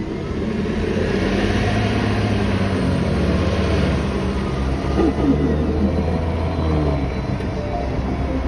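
A motor vehicle's engine running steadily under a loud, continuous rushing noise, with a few brief higher sounds about halfway through; it cuts off abruptly at the end.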